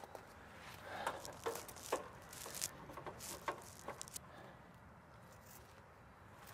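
Faint, irregular rubbing and scraping as PVC liquid-tight flexible conduit is handled with gloved hands and laid against a brick wall. The noises die away about four seconds in.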